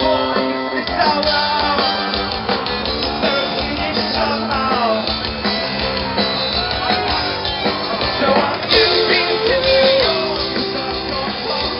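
Live rock band playing with a sung vocal, heard through the stage PA from amid the crowd.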